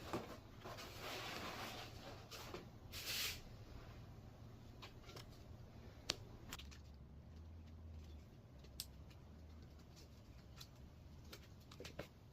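Thin wood veneer sheets and tape being handled on a workbench: rustling and scraping for about three seconds, a short louder rasp near three seconds in, then scattered light clicks and taps.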